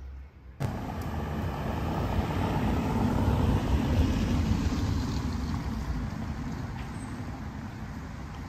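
A motor vehicle passing, coming in suddenly just over half a second in, swelling to its loudest about three to four seconds in, then slowly fading.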